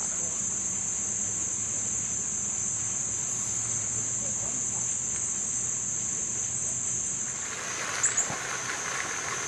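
Insect chorus singing a steady, unbroken high-pitched trill. About seven and a half seconds in, a soft rushing noise joins it, and there are two sharp clicks near the eight-second mark.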